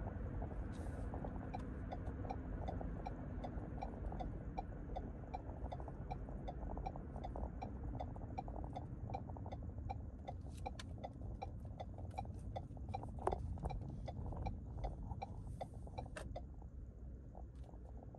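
Car cabin road and tyre rumble while driving, with a turn-signal indicator ticking evenly, about three clicks a second, that stops near the end as the car turns off.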